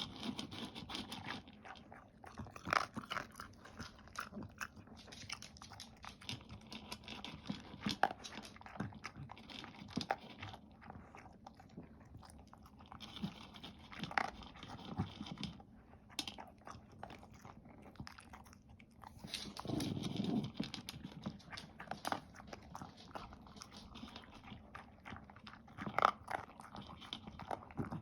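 A dog eating, crunching and chewing its food in irregular bites, with a short low sound about two-thirds of the way through.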